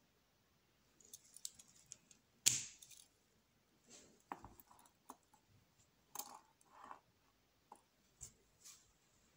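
Handling noise of a steel-bracelet Omega Equinoxe wristwatch: a scatter of small metal clicks and rattles as the link bracelet moves and the reversible case is swivelled and set down, the loudest click about two and a half seconds in.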